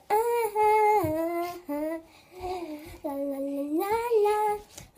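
A young girl singing a wordless tune in long held notes that step up and down in pitch, with short breaks between phrases.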